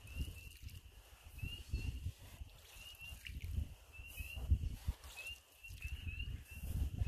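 A marsh chorus of many short, high, rising peeps, several a second, over low muffled rumbling bumps.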